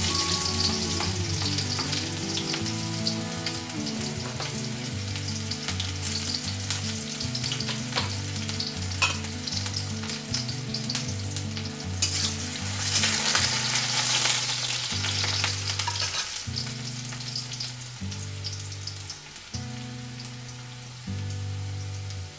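Chopped onion frying in hot oil in an iron kadhai, sizzling and crackling as it is stirred with a spatula. The sizzle swells for a couple of seconds about twelve seconds in, then slowly dies down.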